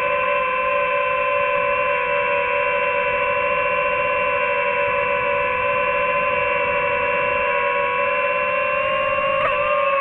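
Quadcopter drone's motors and propellers whining steadily in flight, a cluster of held tones. The pitch sags slightly and then steps up near the end as the motors change speed.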